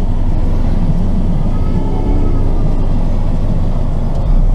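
Deep bass from a car audio system played very loud, a continuous low rumble that steps up again near the end.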